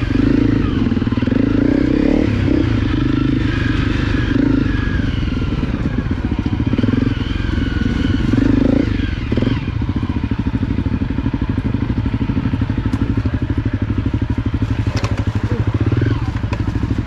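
Honda CRF250 single-cylinder four-stroke trail-bike engine running at low revs while ridden slowly through mud, the throttle opening and closing in the first half, then settling to an even, steady beat about ten seconds in.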